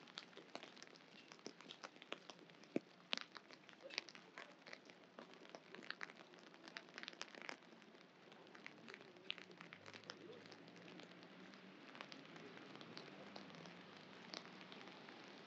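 Light rain: irregular drops tick and patter over a soft hiss of rain on wet pavement. The ticks are thickest in the first half. A faint low hum joins about ten seconds in.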